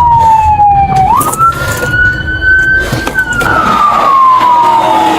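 Emergency vehicle siren in a slow wail, its pitch sliding down, then up, then down again, with a low rumble underneath during the first three seconds.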